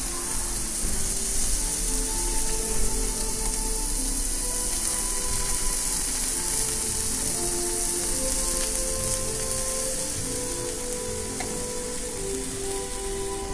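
Bacon-wrapped skewers sizzling steadily on a hot grill plate over binchotan charcoal, with soft background music of held notes underneath.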